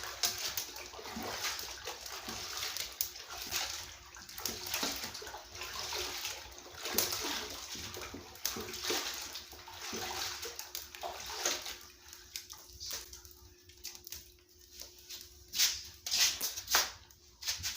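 Water sloshing and splashing in a basin as leafy greens are washed by hand. It is busy for the first eleven seconds or so, then quieter, with a few sharper splashes near the end.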